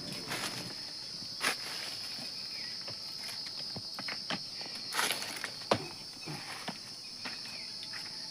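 Footsteps crunching and knocking over dry leaves and stones, with insects buzzing steadily at a high pitch behind them.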